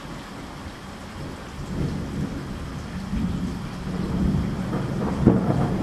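Film sound effects of a starship flying through a storm: a deep, thunder-like rumble over a rain-like hiss, swelling from about two seconds in, with a sharp bang near the end.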